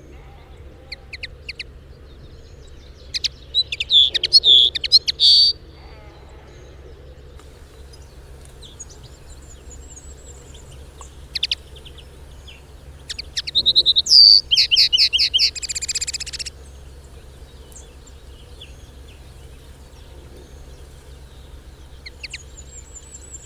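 Lesser redpoll calling: two bouts of rapid, high-pitched chattering notes, one a few seconds in and another just past the middle, with scattered short calls between.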